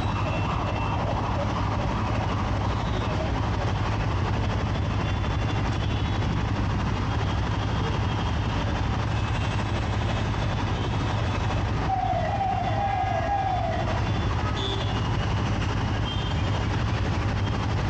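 Motorcycle riding through city traffic: steady engine drone and road noise. About twelve seconds in, a wavering siren-like tone sounds four times in quick succession.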